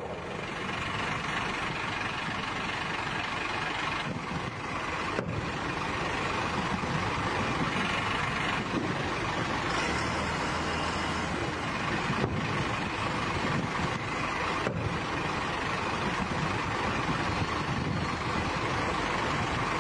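Steady engine noise of a heavy armoured military vehicle running.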